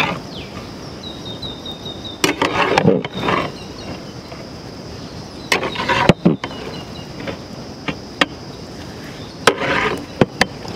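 Big metal spoon stirring a large bowl of chopped fruit salad: three short spells of stirring noise with sharp clicks of the spoon, over a steady hiss.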